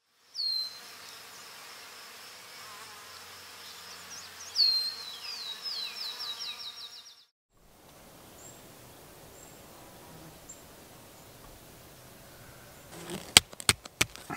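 A high, steady insect-like buzz with a run of quick falling chirps, which cuts off sharply about seven seconds in. Faint woodland air follows with a few small high bird chirps. Near the end there is a quick cluster of sharp clicks and knocks from handling something in the grass.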